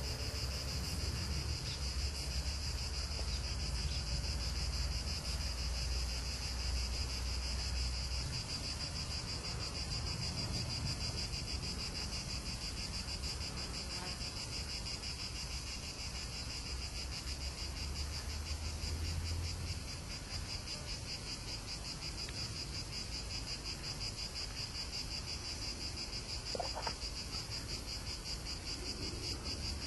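Crickets chirping in a steady, fast-pulsing high-pitched trill, with a low rumble underneath.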